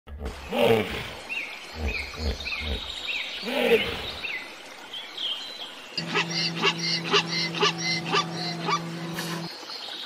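Hippopotamuses grunting in a series of deep, pulsing calls, with small birds chirping over them. About six seconds in, a steady low hum starts, carrying a rapid run of sharp calls at about three a second.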